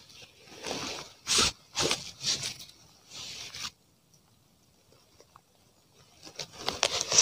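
Close rustling and scraping handling noise on a clip-on microphone, in several short bursts over the first four seconds. After a quiet spell, more rustling builds near the end.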